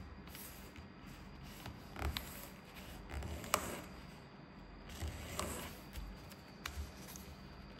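A sheet of paper rustling and crackling as it is folded back and creased by hand, in a few short scattered crackles, the sharpest about three and a half seconds in.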